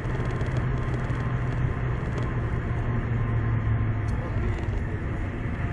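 Car engine and road noise, a steady low hum with no sudden events, as picked up inside a car.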